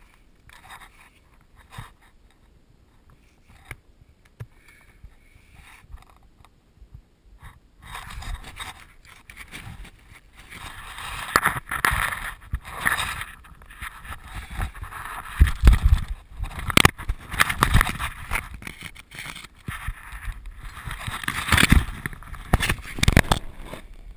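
Clothing and body scraping and rustling against rock as someone crawls through a tight cave passage, with occasional knocks of gear or limbs on the stone. It is quiet with a few small clicks for the first several seconds, and the scraping grows louder from about a third of the way in.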